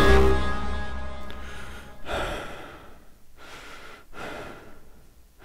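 Background music with sustained notes fades out over the first second or so. Then comes a series of short, breathy gasping sounds from a voice, about one a second.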